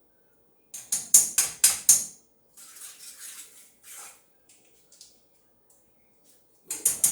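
Kitchen clatter from utensils and cookware: a quick run of sharp, rattling knocks, then softer scraping and a few scattered ticks, with another burst of knocks near the end.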